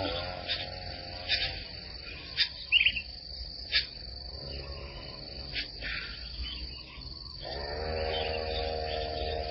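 Steady high-pitched drone of insects, with scattered short chirps and clicks over it. A low sustained drone of several steady pitches, likely background music, comes back in about seven and a half seconds in.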